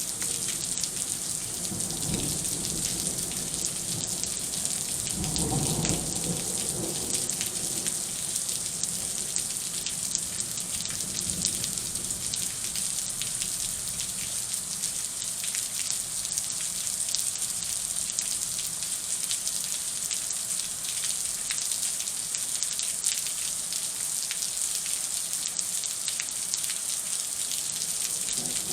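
Steady rain falling in a thunderstorm, a dense hiss of drops. A low rumble sits under it for roughly the first dozen seconds, loudest about six seconds in.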